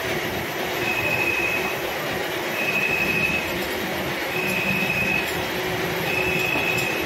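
Milling machine cutting a helical pinion: steady machining noise with a high-pitched squeal that comes in about four times, roughly every second and three quarters, each lasting under a second.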